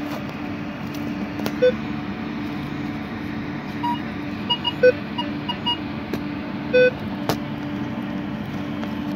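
Metal detector giving target tones as its search coil is swept over a freshly dug hole: a few short low beeps, and a quick run of short higher beeps in the middle.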